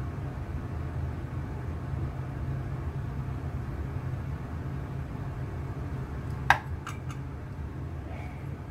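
Steady low background hum, with one sharp click of a metal spoon about six and a half seconds in and a few lighter taps just after it, as spring roll filling is spooned onto a wrapper on a wooden board.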